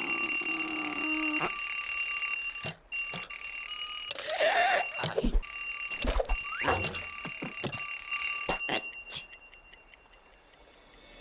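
Cartoon alarm clock ringing steadily, with a few short sweeping sounds over it in the middle; near the end the ringing breaks into separate strikes and dies away.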